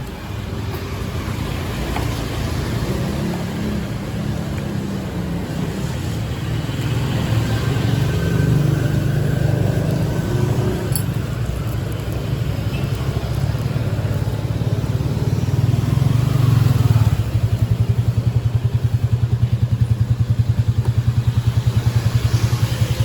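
Motorcycle engine running close by, its sound rising and easing for the first part. About three-quarters of the way in it settles into an even, fast-pulsing idle.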